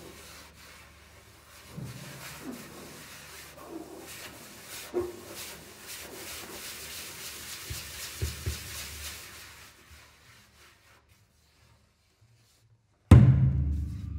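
Double bass played with extended techniques: fingertips rubbing over the wooden body make a hissing, rasping noise with soft low knocks, which fades to near silence about ten seconds in. Near the end, a sudden loud, low hit on the bass rings out and decays.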